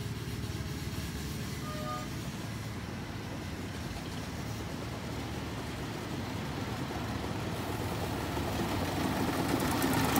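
A miniature ride-on railway locomotive running, its engine sound steady at first and growing louder near the end.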